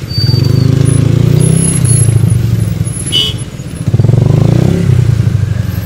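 Small motorcycle engine running close to the microphone, getting louder in two stretches, the second about four seconds in. A short high beep comes about three seconds in.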